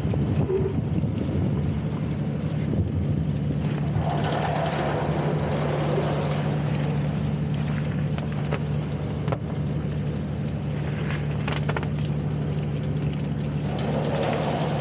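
Engine running steadily at an even pitch, with a few short knocks near the middle.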